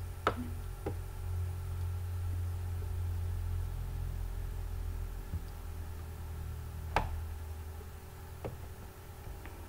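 Computer mouse button clicks while an image is selected and dragged into place: two sharp clicks near the start, another about seven seconds in and a fainter one shortly after. A low steady hum runs underneath.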